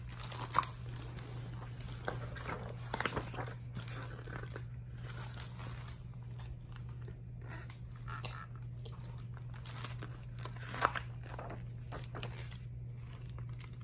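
Handling noise of a picture book: pages and flaps rustling and tapping with scattered light clicks, over a steady low hum.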